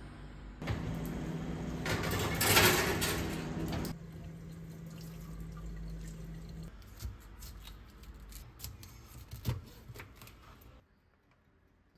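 Water running for a few seconds, strongest about two to three seconds in and stopping about four seconds in, over a steady low hum that ends a few seconds later; a few clicks follow.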